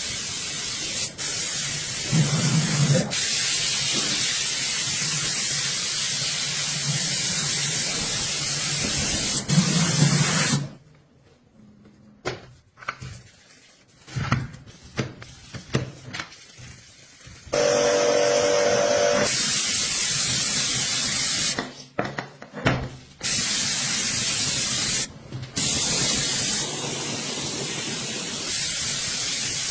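High-pressure spray hissing in long steady bursts on a motorcycle being washed. It cuts off about a third of the way in, gives several short spurts, then starts again with a brief hum, and after two more short breaks runs on steadily.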